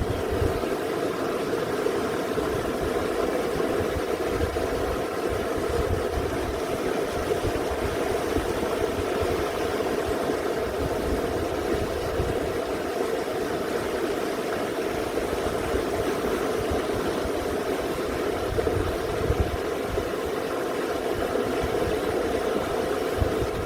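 Mountain stream water rushing steadily and evenly, with an uneven low rumble underneath.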